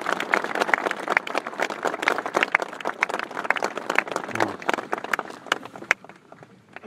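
Audience applauding, many hands clapping at once; the applause thins out and dies away about six seconds in.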